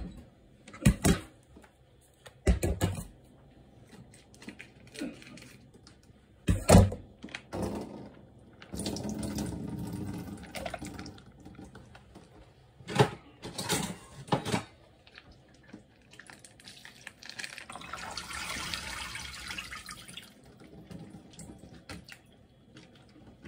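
Water running and splashing in a kitchen sink as konnyaku is drained in a mesh strainer, in two stretches, one around the middle and one near the end. Several sharp clatters and knocks of kitchenware come in between.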